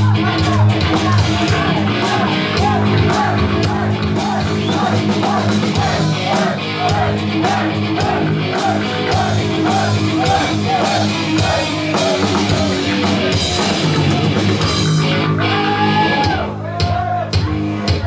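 Live rock band playing loud: a drum kit pounding under sustained bass and guitar, with a repeating higher riff. The steady wall of sound breaks up near the end.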